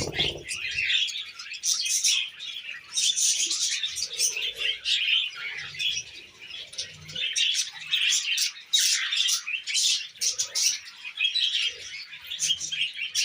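A flock of pet budgies and cockatiels chattering and chirping, with many short, high, overlapping notes running on without a break.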